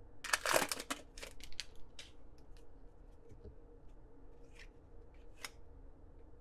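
A hockey card pack's wrapper crinkling and tearing open in a quick run of crackles over the first two seconds, followed by faint rustles and ticks as the cards are handled.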